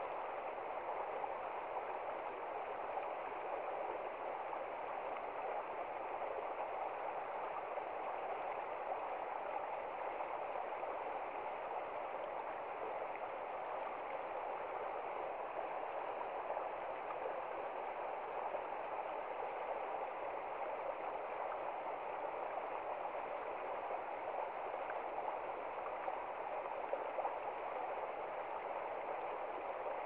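Shallow rocky stream rushing and splashing over stones, a steady, unbroken rush of water.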